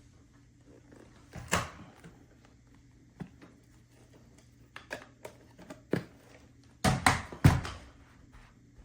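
A handful of short knocks and clicks, one about a second and a half in and the loudest three close together near the end, over a faint steady hum.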